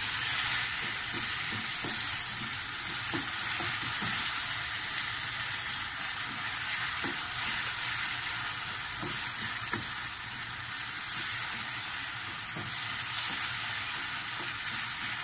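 Tomato sauce of onion, garlic and grated tomato cooking in a frying pan with a steady hiss, while a wooden spoon stirs it.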